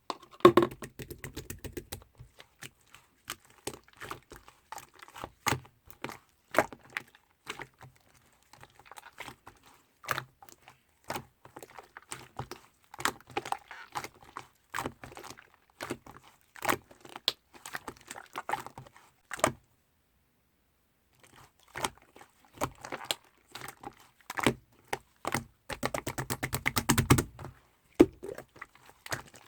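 Slime being squeezed, poked and stretched by hand: an irregular run of sticky clicks and small air-bubble pops. It stops for about two seconds around two-thirds through, then comes back as a dense crackling stretch near the end.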